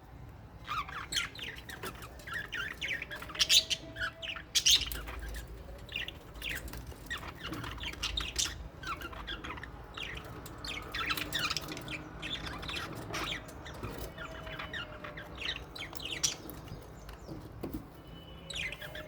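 A flock of small parrots in an aviary chirping and squawking: many short, sharp, overlapping calls, loudest a few seconds in.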